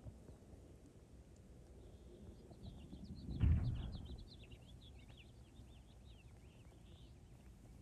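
Faint outdoor ambience with small birds chirping in quick, repeated short notes. A brief low rumble swells and fades about three and a half seconds in.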